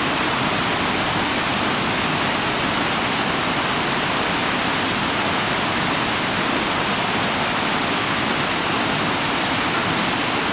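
Steady rushing of a small waterfall cascading over the rocks of a creek.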